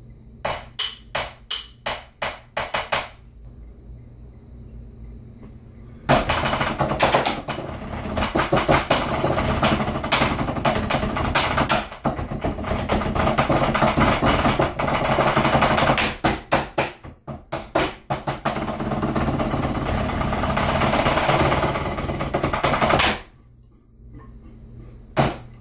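Drumsticks on drum practice pads, two drumline parts layered, playing an indoor drumline lick: about eight evenly spaced strokes, then after a pause fast rolls and dense rudiments with a short stretch of separate accented strokes, cutting off suddenly, followed by a few last strokes near the end.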